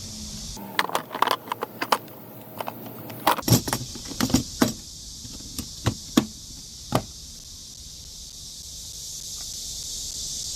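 Irregular sharp metal clicks and clinks, a dozen or so in the first seven seconds, over a steady high hiss.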